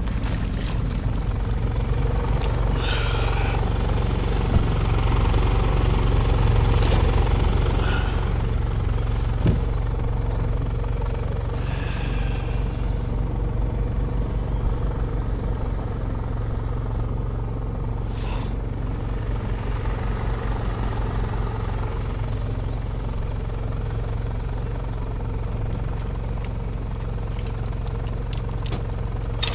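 Steady engine drone from an electrofishing boat: the generator that powers the shocking booms, running together with the boat's outboard motor, holding an even pitch with no change in speed.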